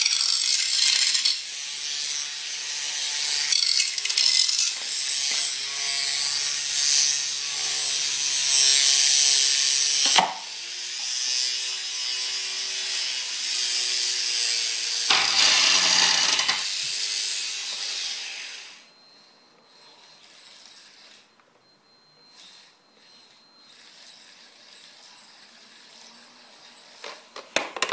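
Antweight spinner combat robot's small electric weapon motor whirring and grinding as the spinner strikes a plastic target, with a sharp hit about ten seconds in and another heavy burst soon after. Past the two-thirds mark it drops much quieter, leaving a faint high whine.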